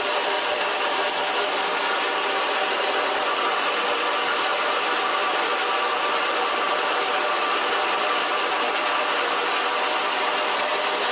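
A machine running steadily, a dense mechanical noise with many steady tones and no change in speed or level.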